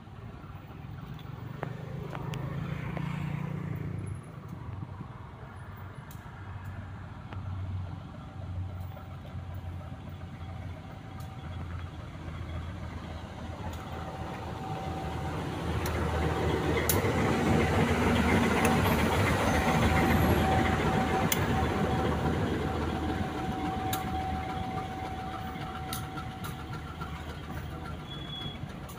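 Diesel-electric locomotive hauling a passenger train, its engine rumbling as it approaches and passes close by. It is loudest about halfway through, then fades a little as the coaches roll past.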